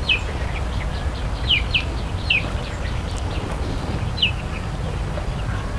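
A handful of short, falling bird chirps, spaced irregularly, over a steady low background rumble.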